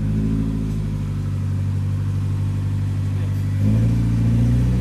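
Nissan 180SX (PS13) engine running at a steady idle, then rising to a slightly higher, louder speed about three and a half seconds in.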